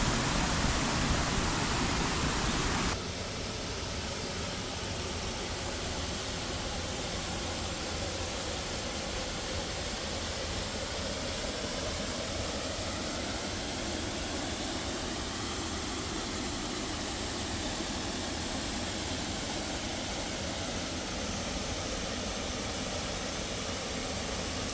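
Waterfall rushing, a steady noise of falling water. It is louder for about the first three seconds, then drops suddenly to a softer, even rush.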